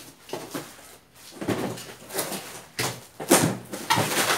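Cardboard shipping box being handled and torn open by hand: a series of short, rough tearing and scraping noises with bumps of cardboard, loudest past the middle.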